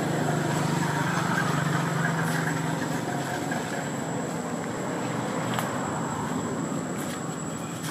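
Steady outdoor background noise with a low hum that stops about three seconds in, a thin high whine, and a few faint clicks.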